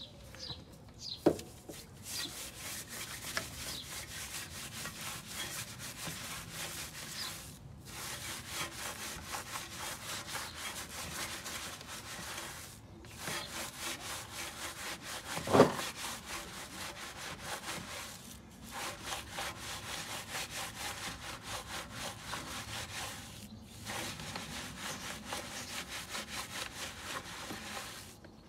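Bristle wheel brush scrubbing the inside of a soapy alloy wheel's barrel in fast back-and-forth strokes, stopping briefly four times. Two sharp knocks, one about a second in and one about halfway through.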